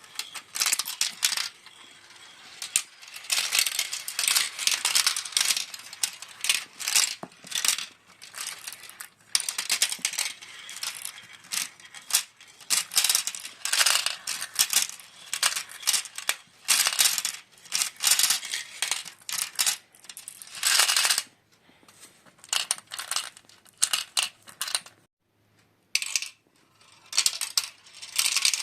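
Marbles rolling and clattering down a plastic marble run track, in rattling bursts of a second or two with short quiet gaps between them.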